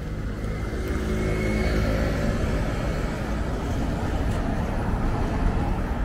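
City street traffic: cars and a small truck passing close, a steady wash of engine and tyre noise that swells a little about a second in.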